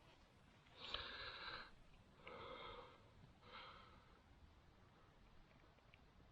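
Three quiet, breathy puffs of breath, the first the longest, about a second apart.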